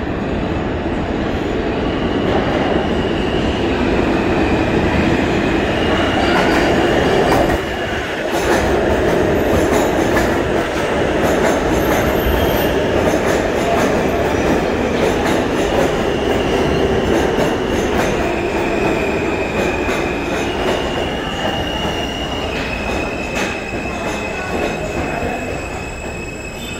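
New York City Subway R160 train pulling into an underground station. Wheels rumble and clatter over the rails, with high-pitched squeals coming and going, and the train slows toward a stop near the end.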